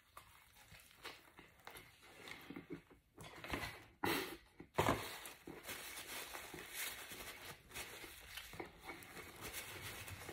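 Faint chewing of a burger, with rustling and crinkling as the burger and its paper wrapping are handled; a few louder rustles come about three to five seconds in.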